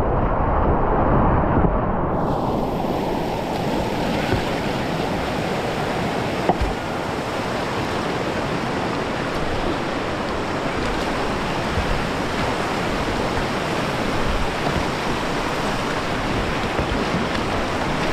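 Rushing water of the River Greta running high, a steady loud noise. It sounds muffled for about the first two seconds, then fuller and brighter.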